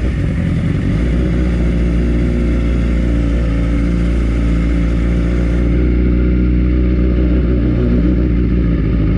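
Motorcycle engine idling steadily, heard close up.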